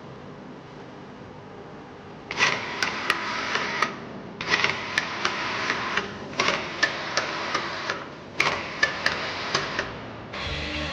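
A workshop tool run in four short bursts of about a second and a half each, each a hiss full of rapid sharp clicks.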